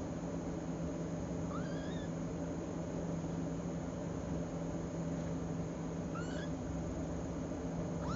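Young kittens mewing: three short, high mews that rise in pitch, a few seconds apart, over a steady low hum.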